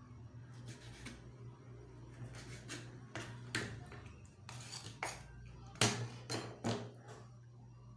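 Kitchen knife knocking on a wooden cutting board while chopping raw needlefish: a string of sharp knocks, with a scrape of the blade pushing pieces across the board about four and a half seconds in, and the loudest knock near six seconds. A steady low hum runs underneath.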